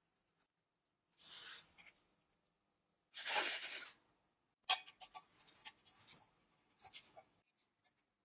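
Small hand-work sounds: two short scratchy rubbing or hissing strokes, the second longer and louder, then a sharp click and scattered light taps and rustles.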